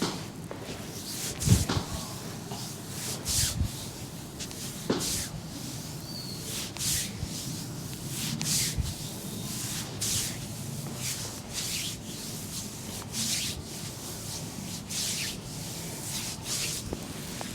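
Hands rubbing over the skin of a back in rhythmic massage strokes, a swish a little more than once a second, with one low thump about a second and a half in.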